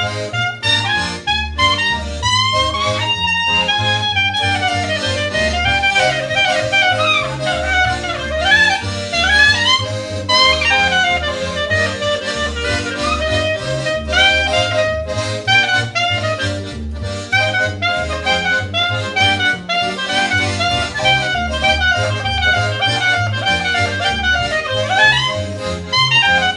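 Small band playing an instrumental jazz-style tune: a lead melody with sliding, wavering notes over a bass line that moves note by note at a steady pace.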